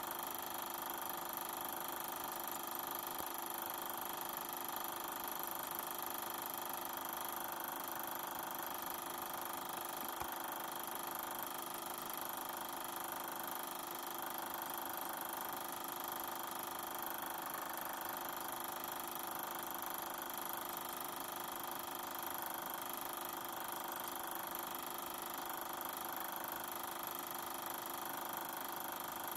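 Super 8 film projector running, a steady mechanical drone made of several constant tones, with no film soundtrack playing.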